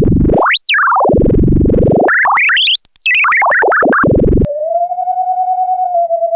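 Brüel & Kjær Type 1022 beat frequency oscillator's sine tone swept by hand up and down its range, swooping from a low hum up to a high whistle and back several times with a choppy warble. About four and a half seconds in it settles on a steady mid-pitched tone with a fast wobble from its modulation section.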